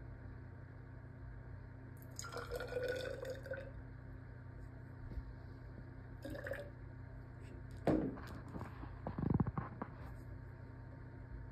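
Water poured from a glass measuring cup into a narrow graduated cylinder in two short trickles, the second a few seconds after the first, followed by a sharp knock and a few lighter clunks as the glass cup is set down on the table.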